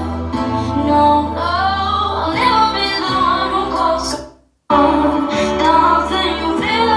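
A song with female singing over a steady bass line, played through a portable Bluetooth speaker at full volume for a sound test. About four seconds in the music fades out to half a second of silence, then comes back suddenly at full level.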